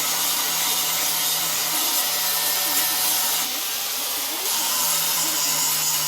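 A power tool running steadily: a constant hum under an even hiss, without a break.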